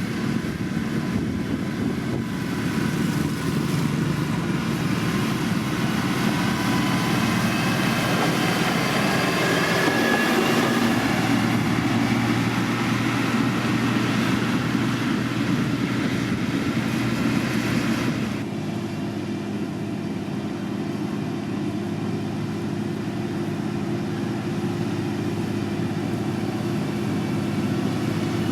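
Diesel engines of heavy road-construction machinery running steadily, with some rise and fall in pitch. About two-thirds of the way through the sound switches abruptly to a different, steadier engine tone.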